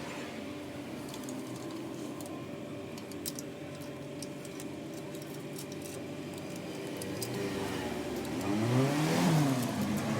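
A motor vehicle engine running steadily with a constant hum, its pitch swinging up and down and growing louder near the end, mixed with light metallic clinks of a motorcycle drive chain being handled.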